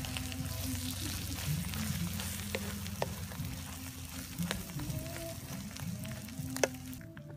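Oil sizzling steadily as snake meat and mushrooms are stir-fried in a steel wok, with a wooden spatula scraping and knocking against the pan now and then. The sizzle cuts off suddenly about seven seconds in.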